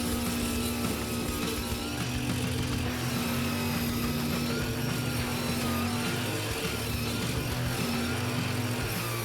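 A motor-driven machine running steadily under background music.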